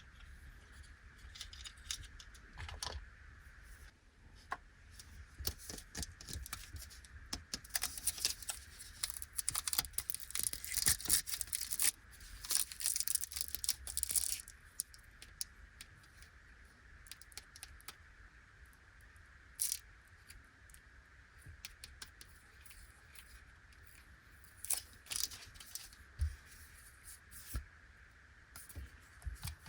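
Plastic snack packet being torn open and crinkled by hand, densest for several seconds in the first half. Afterwards come a few separate light clicks and taps, as of small pieces being handled and set down.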